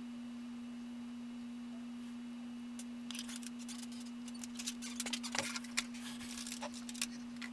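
A steady electrical hum throughout. From about three seconds in come irregular small clicks of a computer mouse and keyboard.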